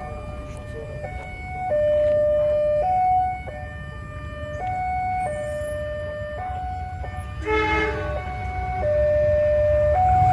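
Railway level-crossing warning alarm sounding a steady two-tone electronic signal, switching between a higher and a lower tone about once a second, over a low rumble of engines. A short horn honk sounds about seven and a half seconds in.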